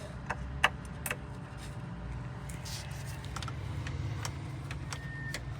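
Scattered sharp light clicks and taps of multimeter probes being handled and set against a fuse, over a steady low hum.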